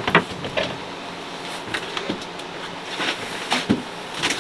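Scattered knocks and clatters from a sailboat's companionway as someone climbs out through it, over a steady hiss.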